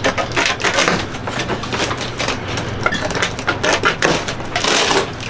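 Packaging of a boxed appliance being handled and opened: irregular crackling, rustling and small knocks, with a longer scraping rasp near the end.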